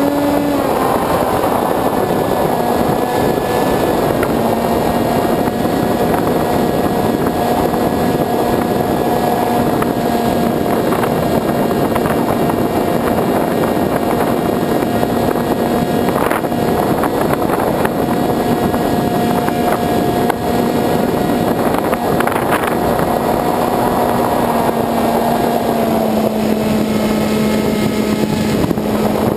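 Electric motor and propeller of a Sky Surfer RC glider running steadily in flight, a constant whine over wind rushing past the onboard camera's microphone. Near the end the pitch of the whine shifts as the motor's note changes.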